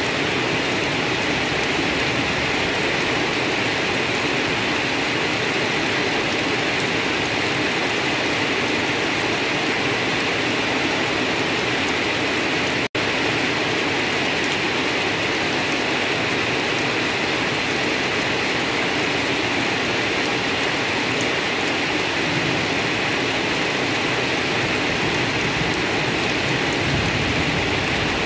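Steady rain falling on dense wet grass and weeds: a constant, even hiss of many drops. It cuts out for an instant once, about halfway through.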